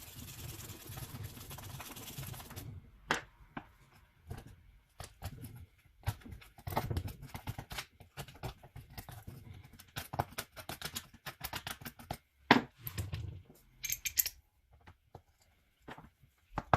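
Small metal parts and hand tools being handled on a transaxle case: scattered clicks, clinks and knocks, with a quicker run of clicks about ten seconds in. A steady whir stops about three seconds in.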